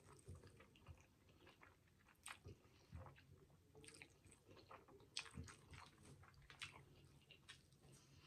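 Faint, close-miked chewing of a mouthful of spaghetti with meat sauce: soft wet mouth clicks and smacks, with a bite of a bread roll near the end.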